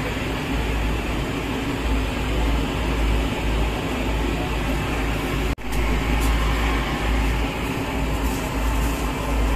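Steady rumbling background noise of a busy food stall, without speech, that drops out for an instant a little past halfway.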